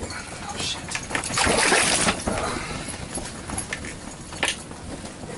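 Hand scooping slush and ice chips out of an ice-fishing hole, wet splashing and scraping loudest in a burst of about a second starting a second in. A short sharp click comes near the end.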